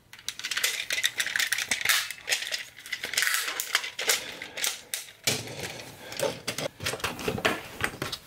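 Plastic ratchet joints and parts of a Transformers Cybertron Metroplex figure clicking and rattling, many quick irregular clicks, as it is twisted and pivoted by hand through its transformation. The joints are still stiff and tight, so they click loudly. From about five seconds in, a rubbing of plastic handled against a surface joins the clicks.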